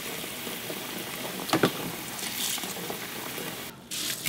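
Cold tap water running in a steady hissing stream into a pot of hot, starchy noodle water in a stainless steel sink, with a couple of light clicks about one and a half seconds in. Near the end the sound drops out briefly, then the pot is tipped and the water pours out into a plastic colander.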